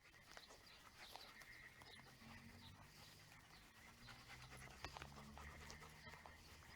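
Dogs panting faintly, with a few faint clicks.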